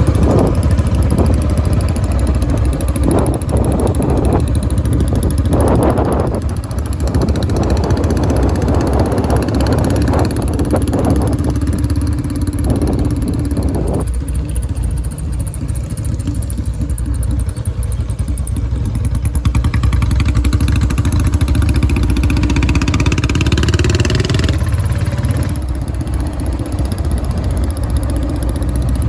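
Royal Enfield Bullet Electra 350's single-cylinder engine running through a large aftermarket Punjabi silencer, giving a steady deep thumping exhaust. About 20 s in, the pitch climbs steadily for a few seconds, then drops back suddenly near 24 s.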